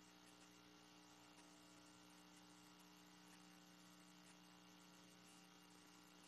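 Near silence: a faint steady electrical hum over a light hiss.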